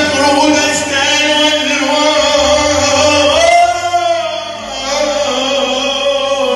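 A man singing Arabic tarab live into a microphone, holding long wavering notes over electronic keyboard accompaniment.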